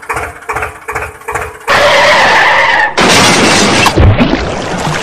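Rhythmic background music, cut off about a second and a half in by a loud rushing noise; about four seconds in, a toy tractor and its trailer splash into water, and the splash fades into sloshing.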